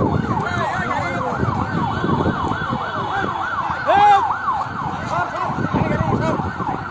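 Emergency vehicle sirens on a fast yelp, rising and falling about three times a second. A louder, lower siren sweeps in briefly about four seconds in, over a low background murmur of crowd and traffic.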